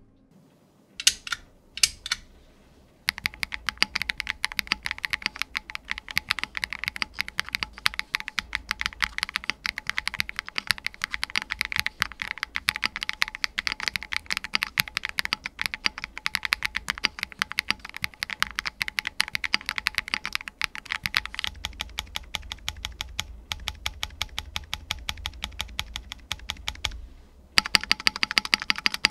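Noir Z1 mechanical keyboard, built with a PC plate, silicone gaskets and case foam, being typed on as a sound test. A few single keystrokes come first, then fast continuous typing. The typing pauses briefly near the end and resumes louder.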